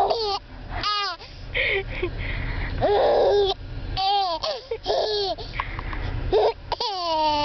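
A baby laughing in a run of short, high-pitched squeals, several of them sliding down in pitch, over the low steady rumble of a car.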